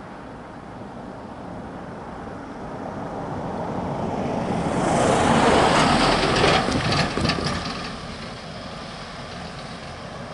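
A flatbed van drives past and over the railway level crossing, its engine and tyre noise swelling up and fading away. As it passes there is a quick run of knocks and rattles, the wheels bumping over the rails.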